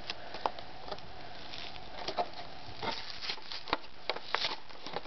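Stiff plastic blister packaging being pulled and flexed by hand, giving scattered, irregular clicks and crackles.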